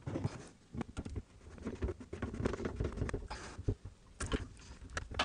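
Plastic filter housing of an under-sink reverse osmosis system being fitted and hand-screwed onto its filter head: irregular scraping and rubbing of plastic threads, with scattered small clicks and knocks.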